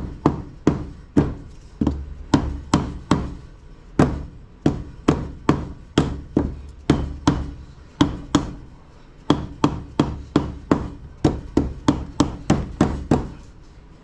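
Hammer blows on the transfer case's steel shaft and bearing parts: about thirty sharp strikes at two to three a second, with a short pause about two-thirds of the way through.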